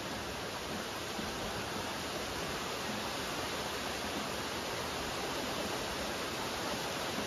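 Steady rain, an even hiss of falling raindrops.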